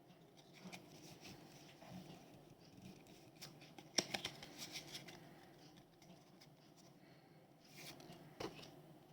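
Faint handling of Pokémon trading cards and their booster-pack packaging: soft rustles and small clicks, with a sharper click and a brief flurry of crackles about four seconds in and another small flurry near the end.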